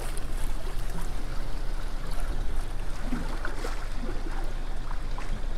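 Water lapping and trickling against the hull of a small boat, an even wash of sound with a steady low rumble beneath.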